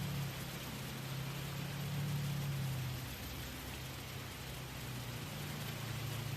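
Gentle waterfall: steady rushing, splashing water. Underneath it a low droning hum swells and fades twice.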